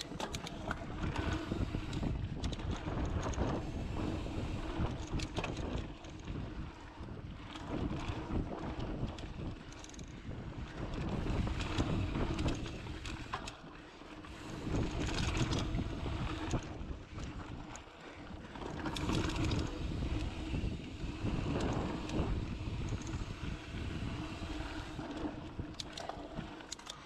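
Mountain bike riding fast down a dirt singletrack, heard from a handlebar camera: wind buffeting the microphone and tyres rumbling over the packed dirt, with frequent small clicks and rattles from the bike, the noise swelling and easing as the speed changes.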